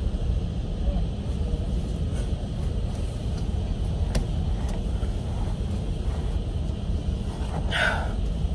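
Steady low rumble of an idling vehicle heard from inside the cabin with a window open, with a short rustle just before the end.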